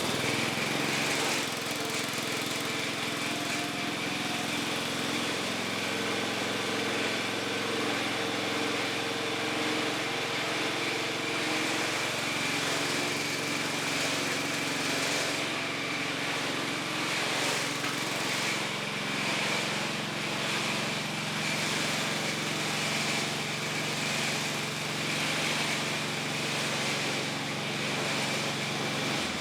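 Shop air compressor running steadily with an even motor hum and whine, cutting off suddenly near the end, which fits the tank reaching its cut-out pressure.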